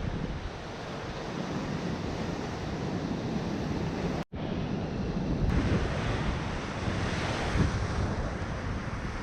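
Ocean surf washing in steadily, with wind buffeting the microphone. The sound drops out for an instant a little past four seconds in, then carries on.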